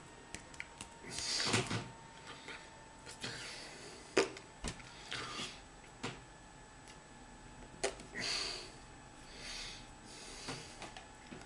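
Hands moving while signing: sharp taps as hands meet, a few times, and soft rustles and breathy puffs as hands brush together and against a shirt.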